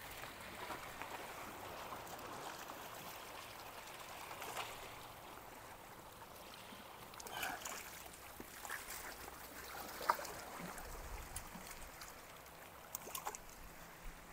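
Gentle seawater washing and lapping against jetty rocks, with a few faint clicks and knocks scattered through it.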